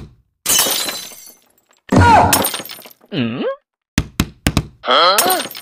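Added comic sound effects: a crash like glass breaking that fades over about a second, then several pitched swooping sounds, one dipping low and rising back up, with a few short clicks in between.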